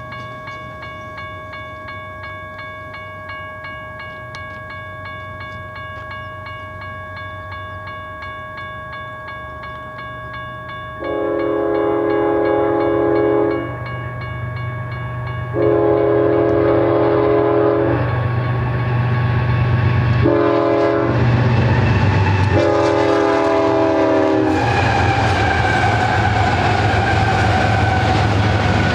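Railroad grade-crossing bell ringing steadily. About a third of the way in, the horn of the Union Pacific GE C45ACCTE lead locomotive sounds the grade-crossing signal: long, long, short, long. The locomotives' engine rumble and wheel noise then grow louder as they pass.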